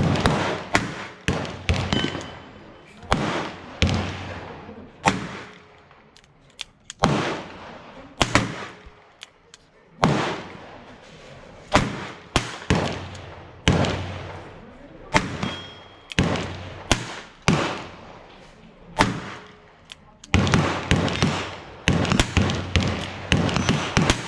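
A string of gunshots: about twenty sharp reports at uneven intervals, closer together near the end, among them a 9mm Chiappa Rhino 60DS revolver being fired.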